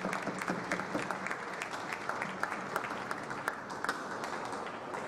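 Spectators clapping in a thin, scattered round of applause for the match-winning point.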